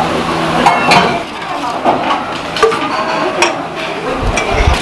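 Kitchen clatter: several sharp knocks and clinks of dishes and metal utensils, some ringing briefly, with a low rumble near the end.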